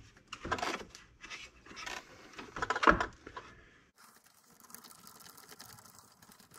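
Clatter and rustle of the RC truck's rubber spare tire and plastic parts being handled, with a knock about three seconds in. Then a hand screwdriver turns a screw into the spare-tire mount with a fine, rapid ticking.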